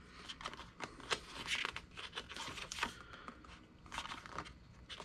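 Pages of a glossy paperback booklet being turned and smoothed by hand: faint, quick paper rustles and swishes, a little louder about a second and a half in and again near three seconds.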